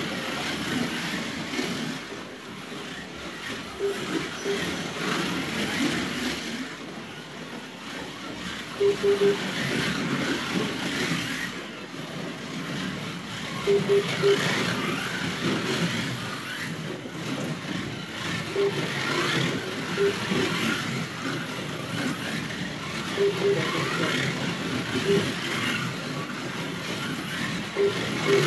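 Can-Am slot cars racing on a multi-lane track, their small electric motors whining up and down as they speed up and brake, over a steady buzz of wheels and pickups on the track. Short beeps sound in quick twos and threes every few seconds, typical of a lap timing system as cars cross the line.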